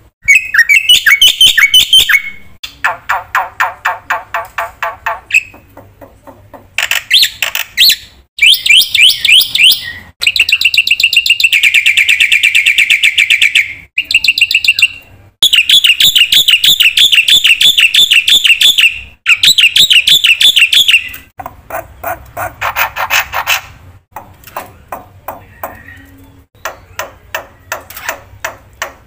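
Black-winged myna (jalak putih) singing loudly in a string of rapid chattering and trilling phrases, each a fast run of repeated notes, with short pauses between them and one long unbroken trill near the middle.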